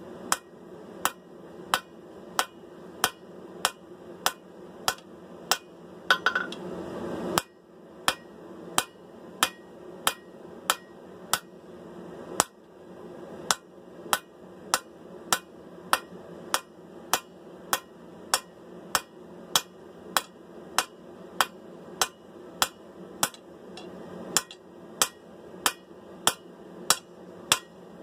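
Hammer striking hot sword steel on an anvil at a steady pace of about two blows a second, drawing out and narrowing the blade, with a steady background noise under the blows.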